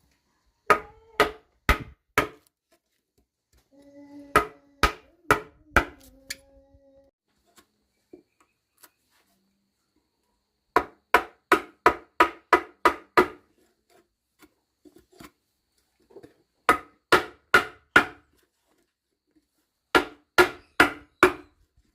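A tool striking wood in quick runs of four to nine blows, about three a second, with pauses between the runs.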